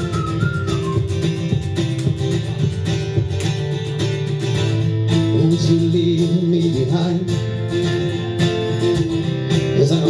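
Live music: a strummed guitar playing steady chords through an instrumental passage of a pop song, with a regular beat.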